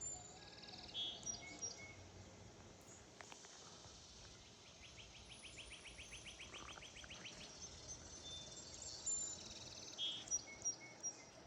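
Swamp cicada calling, a high buzz that grows louder over the seconds, with a few short bird chirps over it.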